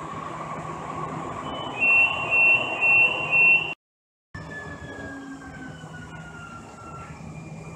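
Steady running noise inside a Siemens S200 light rail car, then four loud two-tone electronic beeps about two a second. After a brief cut to silence the running noise resumes with a whine that falls slowly in pitch as the train slows.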